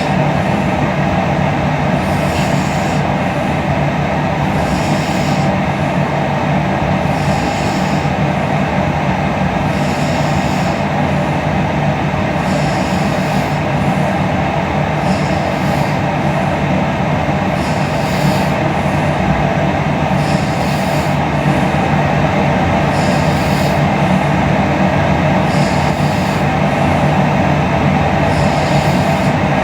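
A sleeping woman snoring and breathing, with a hissing breath about every two and a half seconds over a loud, steady rushing noise.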